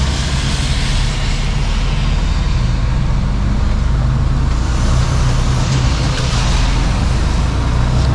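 Heavy truck's diesel engine droning steadily, heard from inside the cab while driving, with tyres hissing on a wet road. The hiss swells near the start and again about five to seven seconds in.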